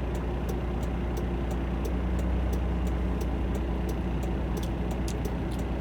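Semi-truck diesel engine running with a steady low drone, with faint, regular ticking about three times a second.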